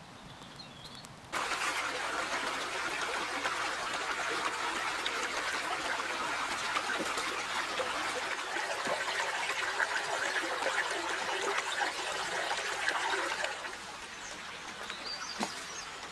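Steady noise of water, as of rain or a trickle, cutting in suddenly about a second in and dropping in level near the end; a bird chirps briefly near the start and again near the end.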